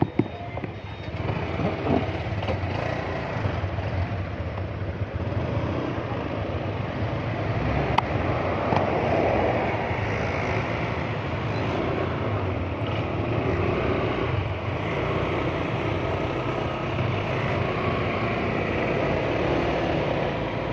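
Motorcycle running steadily on the road.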